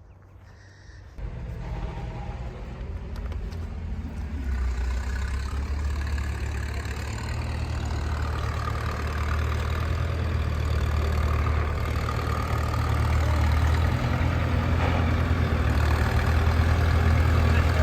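A vehicle engine running steadily with a low hum, cutting in about a second in and growing gradually louder.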